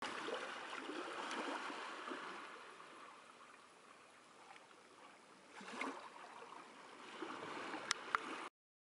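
Seawater trickling and gurgling around a rock pool, louder at first, fading in the middle and swelling again, with two sharp clicks near the end before the sound cuts off abruptly.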